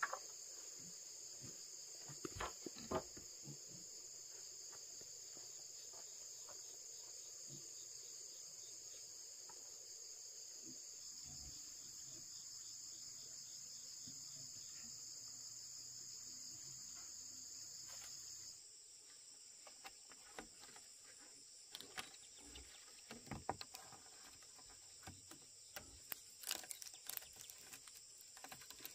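Insects, crickets by the sound of it, keeping up a steady high-pitched chorus, with scattered faint knocks and clicks that come more often near the end. The chorus steps down slightly in pitch and level about two-thirds of the way in.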